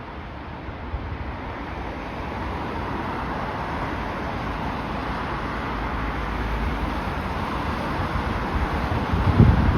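Jet airliner on approach to land, its engine noise swelling steadily louder as it nears. Gusty wind buffets the microphone throughout, with a strong gust near the end.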